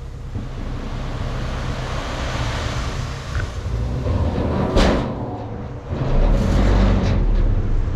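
Dump truck's engine running while a load of 3/4-inch gravel slides out of the raised bed with a rushing rattle. A single sharp bang comes about five seconds in, and the low engine sound grows louder for a second or two near the end.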